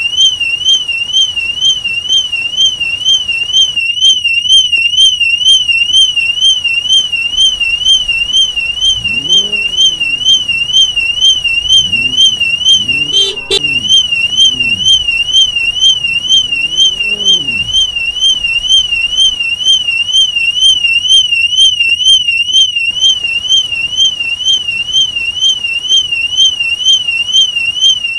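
BMW car alarm siren sounding continuously: one loud, high tone warbling rapidly and evenly up and down in pitch. In the middle a fainter low sound rises and falls in pitch several times, with a sharp click partway through.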